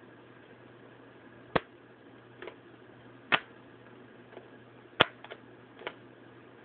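Sharp clicks and taps from hands working the red-and-white backlight plug and its wire loose from a laptop LCD panel: three loud clicks a little under two seconds apart, with a few softer ones between them.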